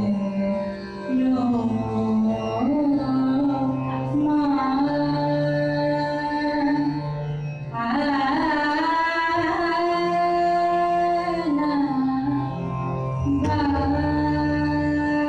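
Female voice singing raag Yaman in Hindustani classical style, holding long notes and gliding between pitches, with tabla accompaniment.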